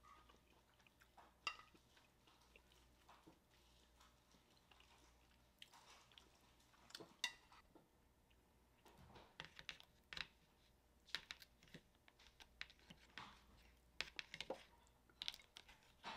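Faint, scattered clicks and taps from a metal spoon and a plastic dumpling tray being handled, separated by near-silent gaps.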